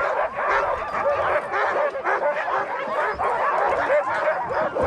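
Many sled dogs barking and yelping at once, a dense, unbroken chorus of overlapping calls.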